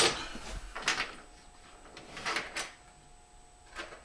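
Small metal bolts clinking and rattling as they are picked through and handled on a tabletop, a few short clatters a second or so apart.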